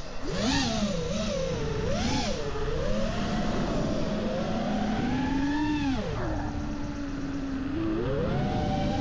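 FPV racing quadcopter's four Emax ECO 2207 2400KV brushless motors and props whining in flight. The pitch swoops up and down with the throttle, settles to a steadier lower hum about two-thirds of the way in, then climbs again near the end.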